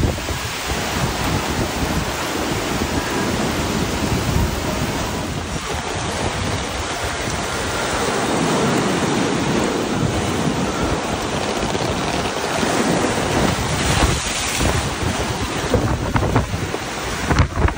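Wind buffeting the microphone over a steady rush of water.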